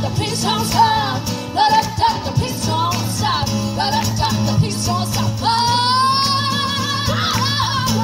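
Two women singing a pop song live over strummed acoustic guitar, with one long sung note held with vibrato about two-thirds of the way through.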